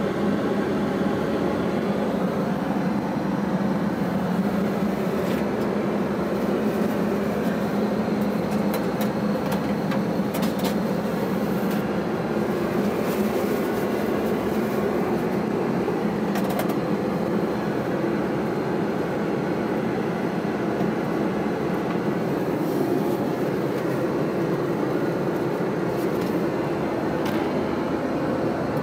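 Steady drone of an airliner's cabin in flight, heard inside the lavatory: engine and airflow noise, with a few brief rustles and knocks as a wad of toilet paper is handled and pushed into the toilet bowl.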